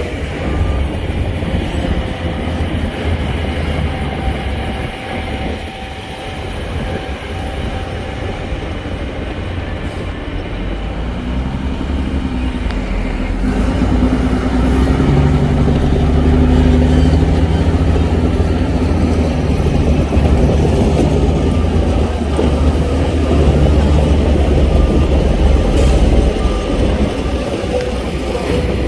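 Heavy diesel earthmoving machinery running hard, with a deep engine rumble that climbs in pitch and grows louder from about halfway through, as under load.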